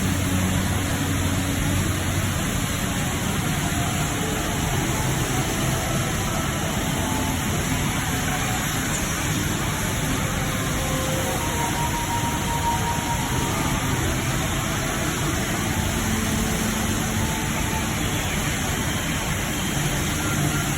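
Steady, even rush of falling water from the Rain Vortex, the tall indoor waterfall at Jewel Changi Airport.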